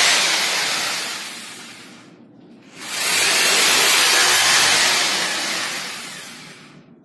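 Handheld electric blower's steady rushing hiss, likely blowing dust out of a freshly cut wall chase. It fades out about two seconds in, starts again sharply a moment later, runs steady, and fades out again near the end.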